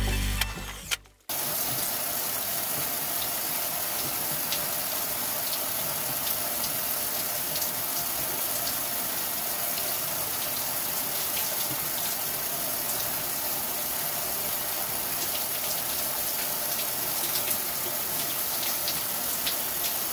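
A shower running steadily, water streaming down from overhead and splashing over a person rinsing off. It starts about a second in as music cuts out.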